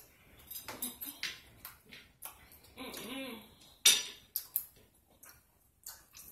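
Short crinkles and clicks of Bubblicious gum pieces being unwrapped and knocked against glass plates, the sharpest click about four seconds in, with a brief muffled voice sound near the three-second mark.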